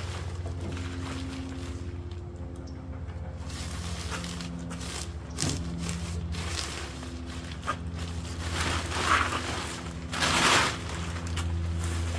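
Nylon tent fabric rustling and scraping as tent poles are handled and fed through the tent's sleeves, with two louder rustling bursts near the end.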